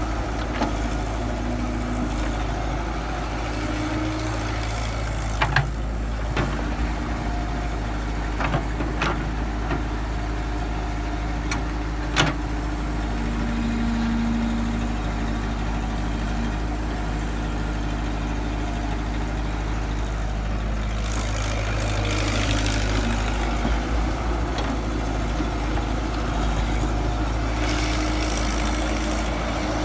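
Excavator diesel engine running steadily, with several sharp knocks in the first half and stretches of louder hiss-like noise in the second half.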